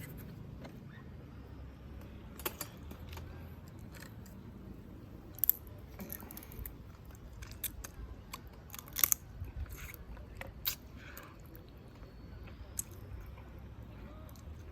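A person eating crab by hand: chewing, with sharp cracks and crunches of crab shell every few seconds, the loudest two near the middle.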